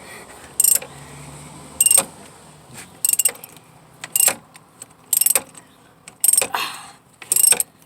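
Socket ratchet clicking in short bursts about once a second, seven strokes in all, as the bolt holding the purge valve is tightened down snug.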